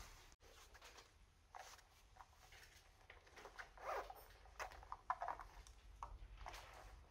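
Small fabric zip pouch being handled on a table: faint, scattered rustles and short zipper rasps, the clearest about four and five seconds in.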